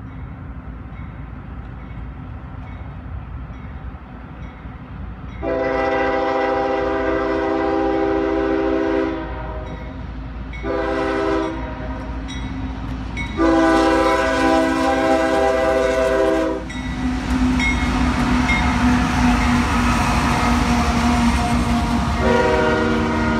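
Freight diesel locomotive's multi-chime air horn sounding a long, a short and a long blast at a grade crossing, over the rising rumble of the approaching train. The locomotive then passes and the loaded rock gondolas roll by with a loud, steady rumble of wheels on rail, and the horn sounds once more near the end.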